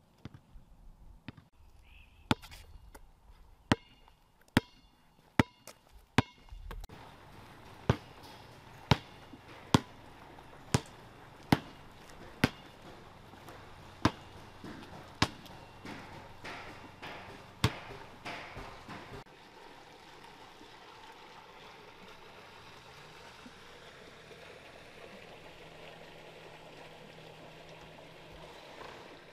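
Footsteps on stone paving: sharp, loud steps at a steady walking pace of about one a second, which stop about two-thirds of the way through. A faint steady hiss follows.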